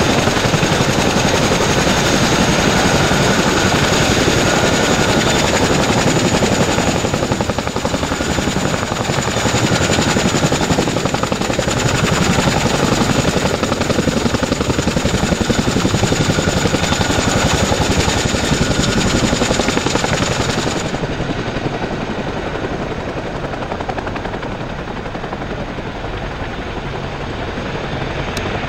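AH-64 Apache attack helicopters running on the ground with rotors turning: a loud, fast rotor chop over a steady high turbine whine. About 21 seconds in, the sound cuts to a quieter, duller helicopter running, a CH-47 Chinook with its twin rotors turning.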